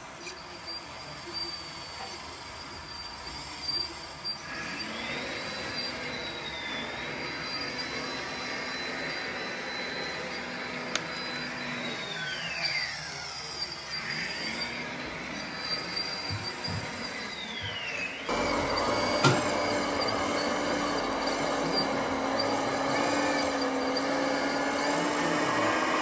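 Electric motors and gearboxes of radio-controlled model construction machines whining, the pitch rising and falling several times as they speed up and slow down. About 18 seconds in the sound changes abruptly to a louder, steadier machine run.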